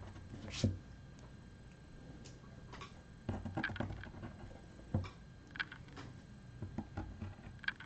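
Faint short scratches and light taps of a pen working on drawing paper, coming in small scattered clusters.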